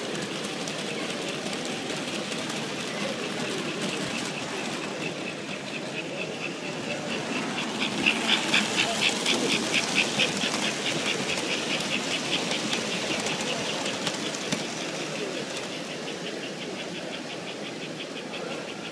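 American Flyer S gauge model steam locomotive chuffing in a quick even rhythm, about four to five chuffs a second, loudest about eight to ten seconds in as it passes close by, then fading. Under it, the steady rumble of model train wheels on the track and the chatter of a crowd.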